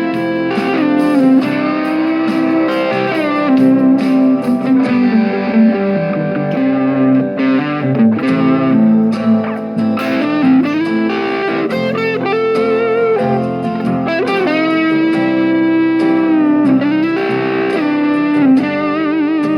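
Electric guitar played through a small mini guitar amplifier: a melodic lead line of held notes with string bends and vibrato.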